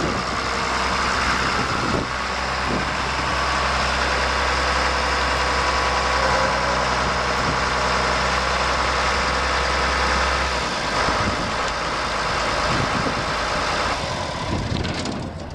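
John Deere 7600 tractor's six-cylinder turbo-diesel running steadily at idle; its low engine note drops away about two-thirds of the way through, leaving a rougher, uneven rumble.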